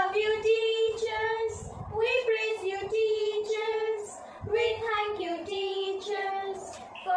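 Two girls singing a song together, with long held notes and short breaks between phrases.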